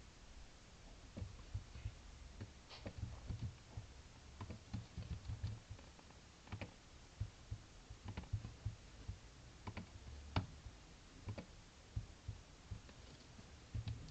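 Computer keyboard keystrokes and mouse clicks, scattered and irregular, fairly faint.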